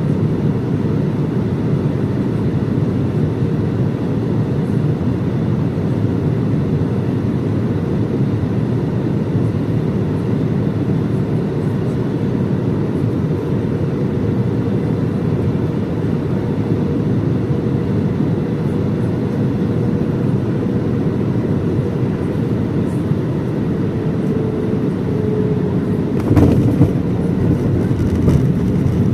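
Cabin noise inside an Airbus A320-216 on approach: a steady rush of airflow over the CFM56 engines' drone, with a faint hum that fades out. About 26 seconds in it turns suddenly louder and rougher, with a few sharp knocks.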